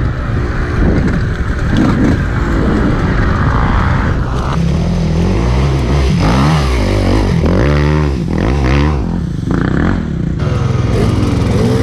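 Dirt bike engine running and being revved, its pitch rising and falling several times in the second half.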